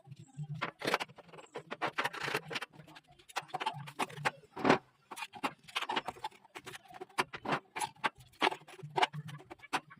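A rapid, irregular run of sharp clicks and taps over a faint low hum.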